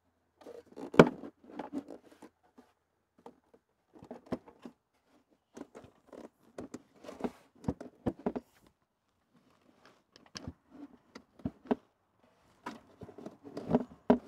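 Hard plastic clicking, knocking and scraping as a cold air intake's plastic airbox is pushed and worked into place in an engine bay, in irregular bursts with rustling between; one louder knock about a second in.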